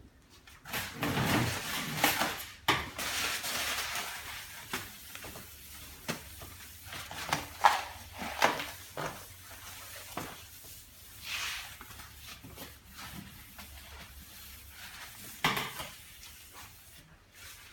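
A kitchen bench being wiped down with disinfectant: a few seconds of rubbing and wiping early on, then scattered knocks and clatters of things being moved on the bench.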